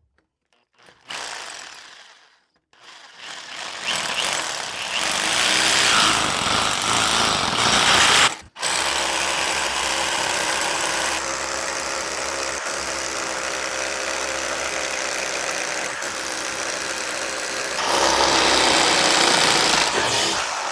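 Electric drill boring a hole: a short trigger pull, then the drill runs up and cuts steadily, stopping briefly about eight seconds in. It gets louder again near the end, then winds down.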